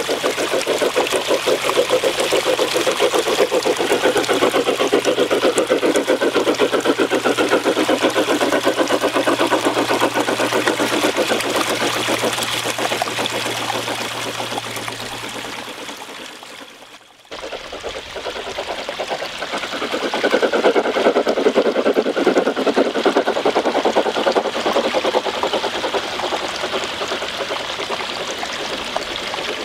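G-scale model train rolling over a metal girder bridge and trestle, its wheels clattering quickly and steadily on the track, with a small garden stream trickling below. A low hum runs under the first half; the clatter cuts out sharply about 17 seconds in, comes back a couple of seconds later and then eases off.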